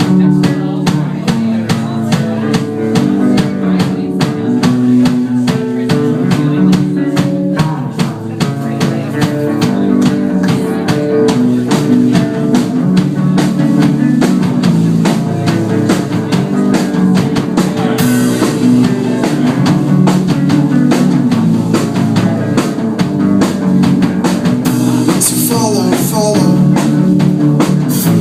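Live band playing a song's instrumental intro: a drum kit keeping a steady beat over guitar and low sustained notes.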